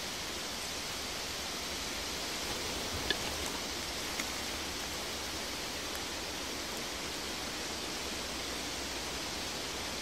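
Steady rushing noise, even and unchanging, with a faint click about three seconds in and another about four seconds in.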